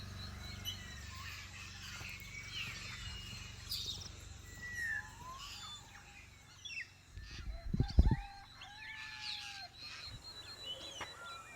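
Many birds calling at once, a chorus of short whistles and sliding calls, over a faint steady high insect tone. A low thump about eight seconds in is the loudest sound.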